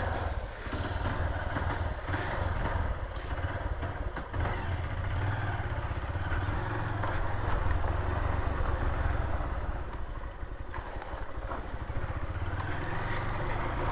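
Honda CG Titan 150's single-cylinder engine running while the motorcycle is ridden, the level rising slightly in the middle. The owner says the engine has an annoying abnormal noise that started after the clutch bearing was replaced.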